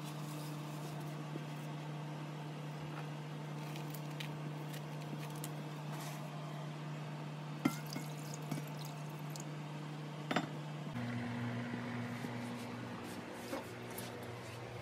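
Glass food containers handled in a stainless steel pot with a few sharp clinks, and water poured in around them, over a steady low hum that drops in pitch about eleven seconds in.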